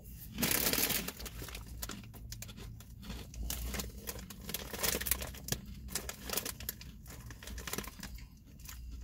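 Crinkling and rustling of a Ballreich's potato chip bag being handled, loudest in a burst about half a second in, then irregular crackles as the bag is squeezed and shifted.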